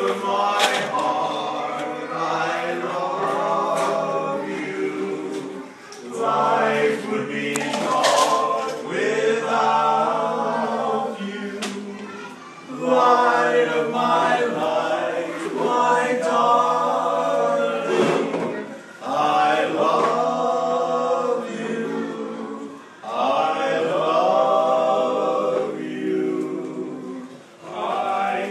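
Barbershop quartet singing a cappella, several voices holding chords together in sung phrases with short breaks every few seconds.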